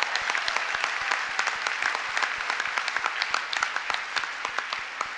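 Large audience applauding: dense clapping that slowly thins and quiets toward the end.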